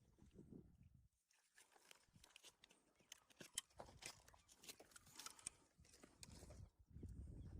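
Near silence with faint scattered clicks and taps, and a low rumble coming in near the end.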